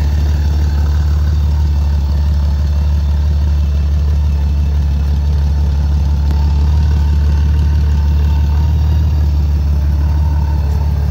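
Honda Valkyrie F6C's flat-six engine idling steadily through a short aftermarket exhaust.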